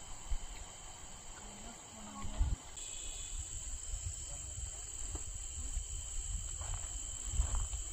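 Crickets trilling steadily in a high, continuous tone over a low rumble.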